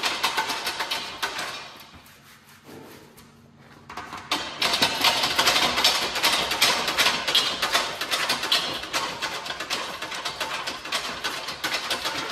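Rapid metallic clattering as a thin sheet of metal is worked on a bench sheet-metal machine. It fades away for about two seconds near the start, then comes back loud and carries on.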